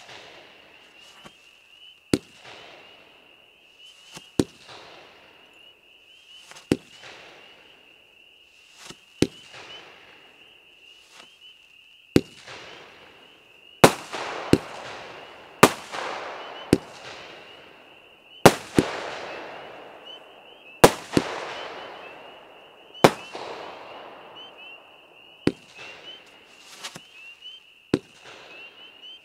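FAE Scorpion Sting fireworks cake firing single shots of snakes and strobes: a sharp launch report every two seconds or so, coming faster in the middle, each followed by a hissing, fizzing trail that fades away.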